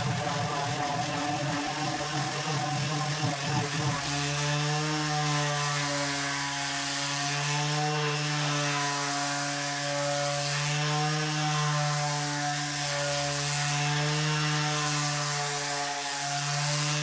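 Makita cordless random orbital sander running on the steel top plate of a welding table, sanding the surface to a finish. A steady motor hum that wavers slightly in pitch, with more scratchy grinding in the first few seconds.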